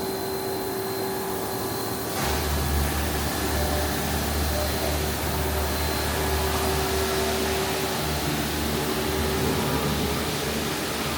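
Steady electrical and mechanical hum of a powered-up Hardinge GS-51 CNC turning center at rest, with a steady tone over a hiss. About two seconds in, a louder low rumble comes in and then holds steady.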